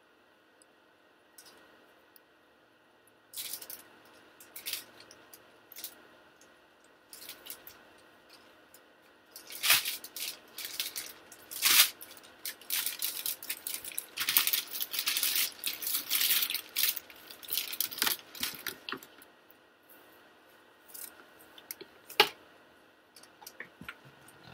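Plastic shopping bag rustling and crinkling as it is rummaged through, in irregular crackles, busiest from about ten to nineteen seconds in.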